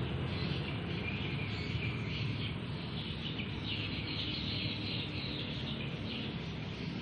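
Outdoor ambience: a dense, constant high chirping from small creatures, with a steady low hum underneath.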